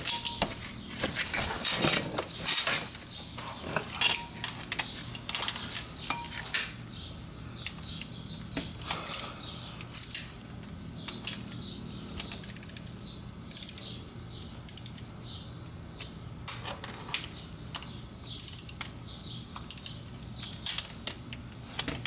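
Metal hand tools clinking and clicking irregularly as the bolts of a 2006 Volkswagen Jetta's clutch are tightened in a numbered torque sequence.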